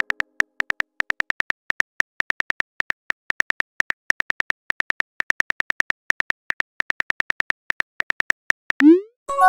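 Simulated phone keyboard clicking rapidly and evenly as a long text message is typed out letter by letter. Near the end a short rising whoosh sounds as the message is sent.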